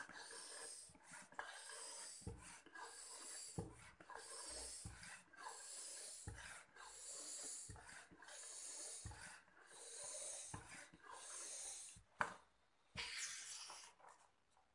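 Faint hand-operated air pump inflating a bicycle inner tube through its valve: a hiss of air on each stroke, repeating about every second and a half. The strokes stop shortly before the end, giving way to a few short handling sounds.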